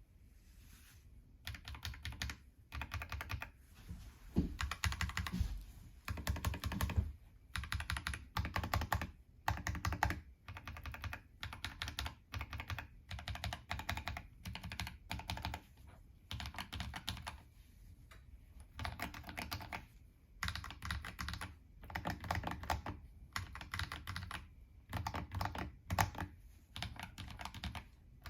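Typing on a mechanical keyboard with lubed Akko Ocean Blue switches, fitted with prototype CNC aluminum and brass keycaps: rapid clacking keystrokes in bursts of a second or two, with short pauses between them.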